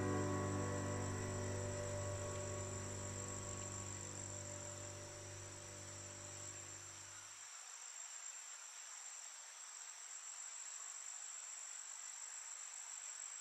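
Steady high-pitched chirring of crickets. Over it, a low ringing musical tone dies away and cuts off suddenly about seven and a half seconds in.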